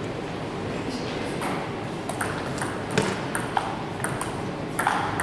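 Table tennis rally: the ball clicking off the bats and bouncing on the table, about two strikes a second, starting about a second and a half in.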